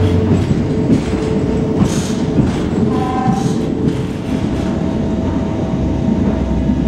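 Passenger train running along the track, heard from inside the carriage: a steady rumble of wheels on rails, with a brief high tone about three seconds in.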